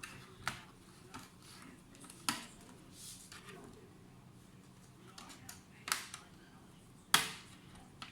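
Sharp clicks and taps of hard objects being handled, about five of them spread out at uneven intervals, the loudest two near the end.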